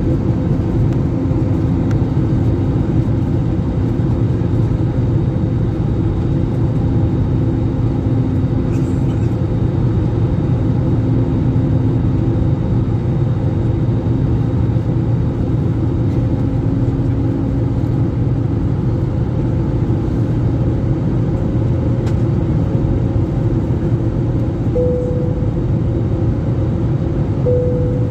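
Passenger airliner cabin in flight: a steady, even rumble of engines and airflow, with faint hum tones that drift slightly in pitch.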